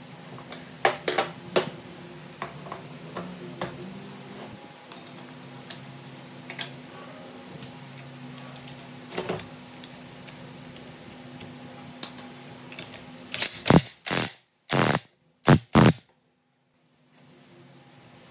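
Metal engine parts clicking and clanking as a Honda GX120 engine is reassembled by hand, while its flywheel is set in place. Scattered light clicks are followed by a quick cluster of louder knocks near the end, over a steady low hum.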